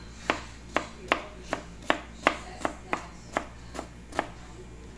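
Kitchen knife chopping semi-ripe green mango into small cubes on a cutting board: about eleven sharp, evenly paced knife strikes, roughly two and a half a second, stopping near the end.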